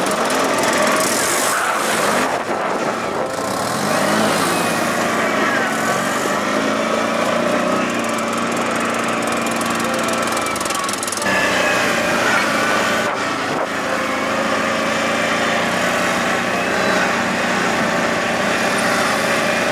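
CFMoto X8 820LE ATV's V-twin engine running under way, its pitch rising and falling with the throttle. The sound changes abruptly about eleven seconds in.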